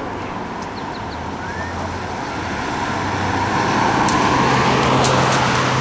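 A car driving along the road toward the microphone, its tyre and engine noise swelling steadily louder through the middle and peaking near the end.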